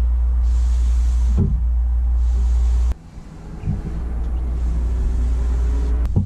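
Cloth rag rubbing stain onto a wooden tabletop in repeated strokes, a soft hiss about once a second, over a steady low rumble. The rumble drops out abruptly about halfway through and then builds back up.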